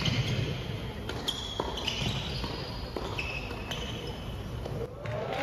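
Doubles tennis rally on an indoor hard court: a string of sharp racquet-on-ball strikes and ball bounces, with players' shoes squeaking on the court between shots. The rally stops just before the end.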